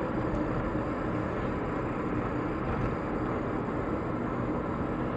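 Steady noise of a car driving along the road, with no distinct events.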